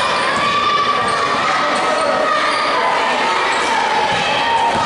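Gym noise during a basketball game: a basketball bouncing on the court amid the constant chatter of a crowd in a large hall.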